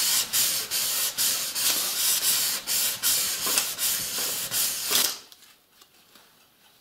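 A wad of paper tissue rubbed hard over a wooden tabletop in quick scratchy strokes, about three a second, wiping spilled paint off the wood; the rubbing stops about five seconds in.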